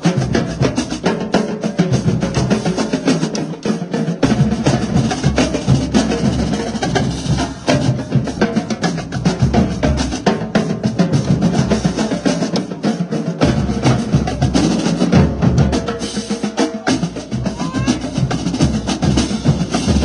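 Marching drumline playing a fast cadence: rapid snare and tenor drum strokes, with bass drums coming in about two seconds in and dropping out briefly a few times.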